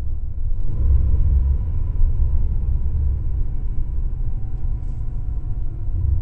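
Porsche 997.2 Carrera 4S's 3.8-litre flat-six running at low speed, heard from inside the cabin as a steady low rumble mixed with road noise. A faint whine drops slightly in pitch in the second half.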